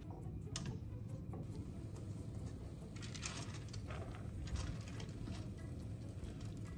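Wet soaked split mung beans pattering as they are poured from a bowl into a metal mesh steamer basket, the pattering heaviest from about three seconds in, over a low steady hum.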